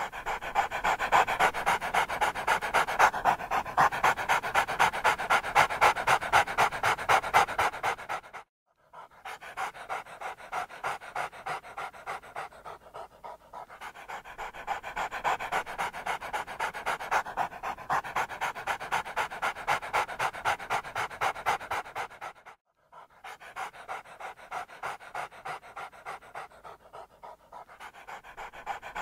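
Heavy, rapid panting, about three breaths a second in an even rhythm, broken twice by a brief cut to silence.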